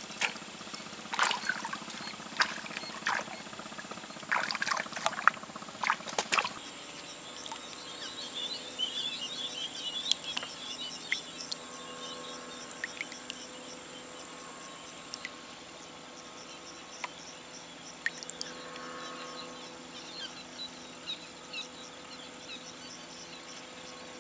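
A run of sharp clicks and knocks during the first six seconds, then a steady outdoor background with insects chirping and trilling in high, rapid pulses.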